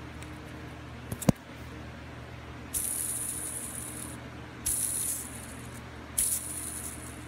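Worn 6002Z ball bearing on the shaft of a Daikin ceiling-cassette fan motor, spun by hand three times. Each spin gives a gritty, hissing whir that lasts about a second, and there is a single click about a second in. It sounds like a roller skate: the rough running of a bearing gone bad, dragging enough to heat up.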